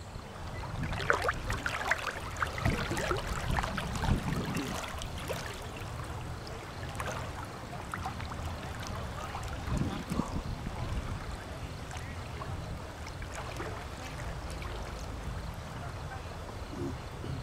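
Lake water splashing and lapping close to the microphone, with wind rumbling on it; the splashing is busiest in the first few seconds.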